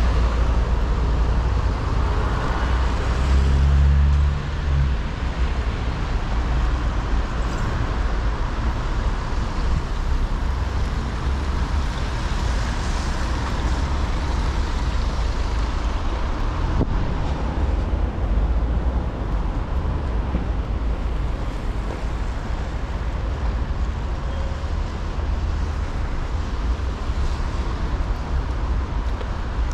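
Street traffic ambience in the rain: a steady hiss and low rumble of passing cars. One vehicle's engine note stands out about three to five seconds in.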